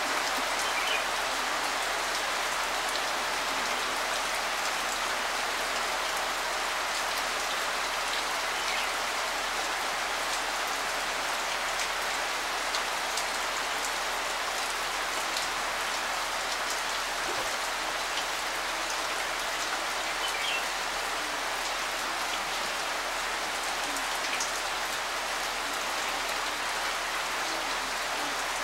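Steady rain falling on leaves and ground, an even hiss.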